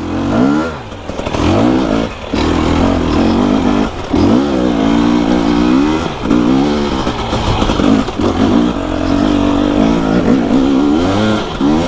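Two-stroke enduro motorcycle engine being ridden hard, its pitch climbing and falling again and again as the throttle is opened and closed, with short drops in between.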